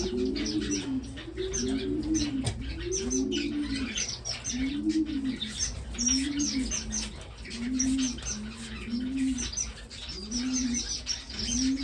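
Captive finches chirping busily in a bird room, with high, short calls overlapping throughout. Under them, a low call that rises and falls in pitch repeats roughly once a second.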